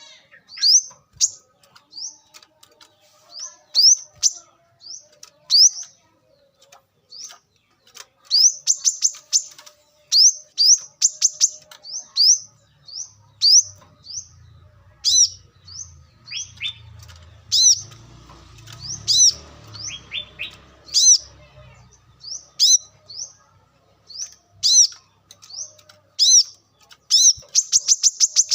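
Brown-throated sunbird calling: sharp, high chirps, singly and in short runs, breaking near the end into a fast, rattling series.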